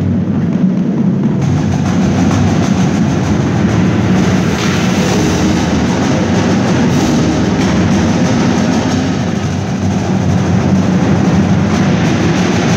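Indoor drumline and front ensemble playing loudly: a dense, unbroken wash of drums and mallet percussion over a steady low hum.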